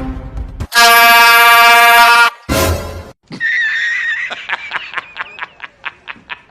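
An air horn blasts once, very loud and steady, for about a second and a half, starting just under a second in. A short loud burst of sound follows, then a wavering high tone and a rapid run of short pulses.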